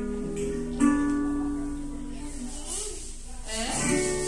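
Acoustic guitar music: plucked notes and chords that ring on and fade.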